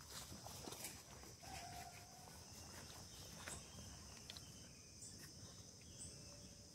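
Faint, steady high-pitched chorus of crickets, with a few small clicks scattered through it.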